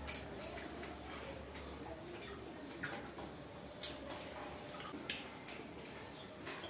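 Two people eating with their hands from steel plates: a handful of scattered small clicks and taps over a low steady hum.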